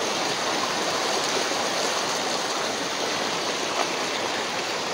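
Fast, muddy floodwater from the Manu river rushing across a road, a steady, even rush of water.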